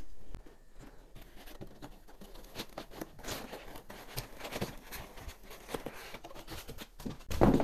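Rustling of foam packaging and light knocks of aluminium extrusion frame parts as a 3D printer is lifted out of its box: faint, irregular handling noise, with a louder thump near the end.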